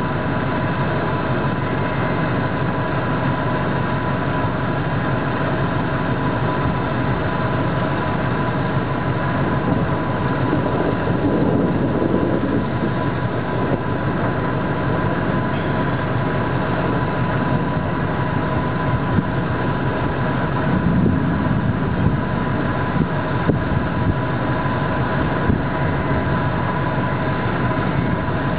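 Steady rumble of a car engine idling, with a thin steady tone running over it.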